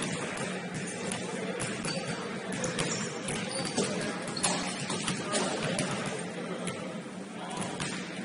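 Basketballs bouncing on a hardwood gym floor, irregular thuds ringing out in the echoing hall, with players' voices in the background.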